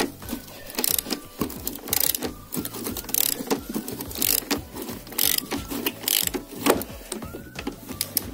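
Socket ratchet with an extension clicking in short runs about once a second as the handle is swung back and forth, backing out a rusted bolt.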